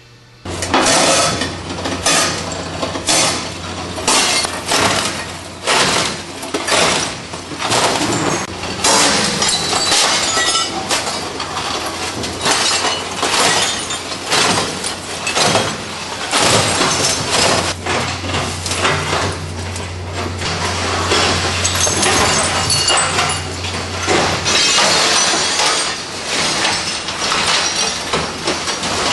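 Model 270 can and glass crusher breaking up CRT picture-tube glass: a dense run of glass breaking and crunching that starts suddenly about half a second in, over the machine's steady low hum, which stops about 25 seconds in.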